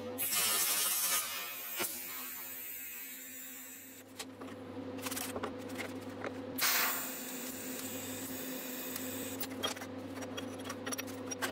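Steady electrical hum of shop equipment, with a short rush of noise at the start and scattered light clicks and knocks of small steel parts being handled against a magnetic welding square.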